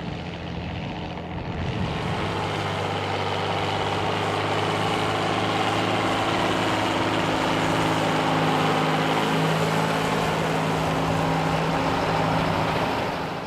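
John Deere tractor's diesel engine running steadily under hard load while pulling a plough. It grows louder about two seconds in, as if the tractor is coming closer.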